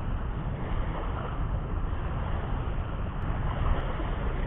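Steady rumble of wind buffeting the microphone, with small waves washing onto a sandy shore.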